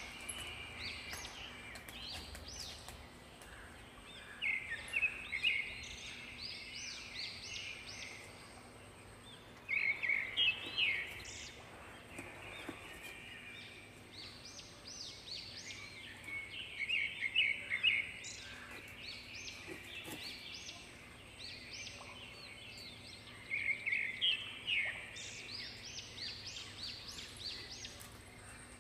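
Birds calling outdoors: several bouts of quick, repeated high chirping notes a few seconds apart, over a steady background hush.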